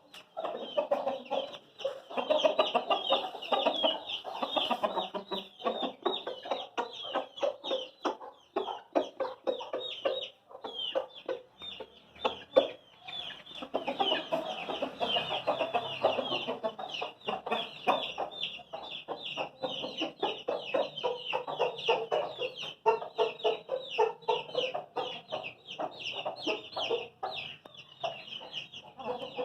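Aseel chickens clucking continuously, with a dense stream of short, high calls running over the lower clucks throughout.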